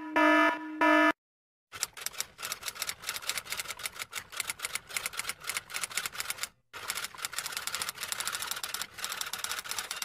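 An alarm sounding in short repeated beeps, the loudest sound here, cuts off about a second in. After a short silence a typewriter clacks away in rapid keystrokes, with one brief pause about two-thirds of the way through.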